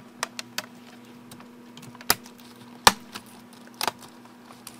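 Irregular clicks and clacks of laptop keys under the hands as a newly installed replacement keyboard on an HP EliteBook 8770W is pressed down to seat it. There are about seven clicks at uneven spacing, the loudest about three seconds in.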